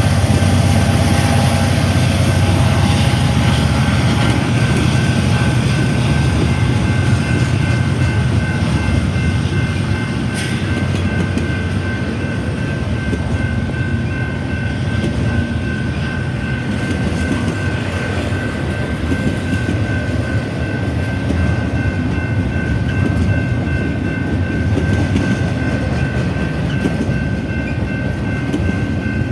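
Union Pacific intermodal freight train rolling past: a steady rumble and clatter of steel wheels on rail from the double-stack container cars. The low rumble of the trailing diesel locomotives fades over the first few seconds, and the grade-crossing warning bell rings throughout.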